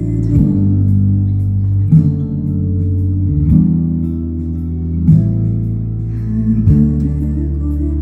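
Live band music led by acoustic guitar over a strong bass line, with no singing. The chords change about every one and a half to two seconds.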